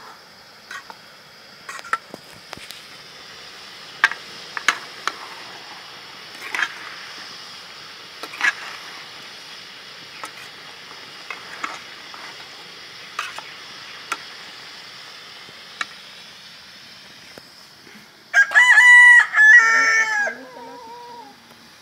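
A metal ladle clinks and scrapes against a wok in scattered sharp knocks over a steady hiss. About eighteen seconds in, a rooster crows loudly for about two seconds, drowning out the cooking.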